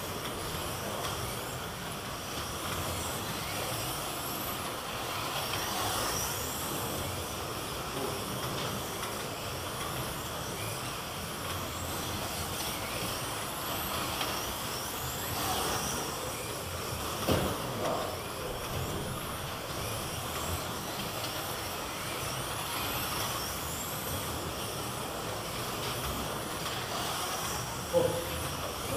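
Slot cars racing round a multi-lane track: the high whine of their small electric motors rises again and again as they accelerate out of the bends. One sharp knock about seventeen seconds in.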